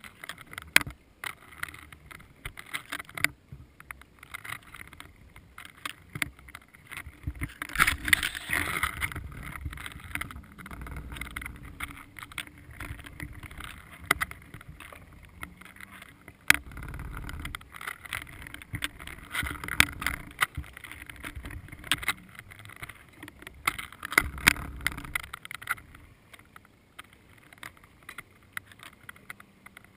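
Underwater noise picked up through a submerged camera's housing: a muffled hiss of water with scattered sharp clicks and knocks. There are several louder rushing surges, the strongest about eight seconds in.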